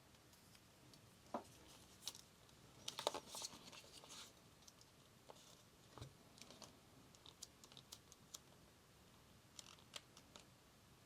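Faint, scattered small clicks and taps of a camera body and small tools being handled during repair work, with a quick cluster of clicks about three seconds in.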